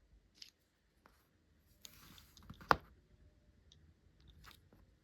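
Light clicks and scraping from small hardware being handled on a desk, with one sharp click about two and a half seconds in.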